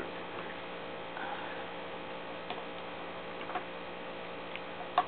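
A low, steady electrical hum, with a few scattered light clicks and taps; the sharpest click comes near the end.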